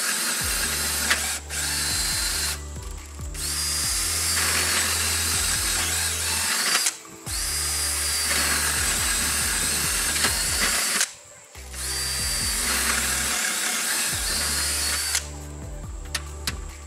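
Handheld power drill pre-drilling holes in house siding for wall anchors. It runs in four long stretches of about three to four seconds each, with short stops between, and a whine that rises each time it spins up.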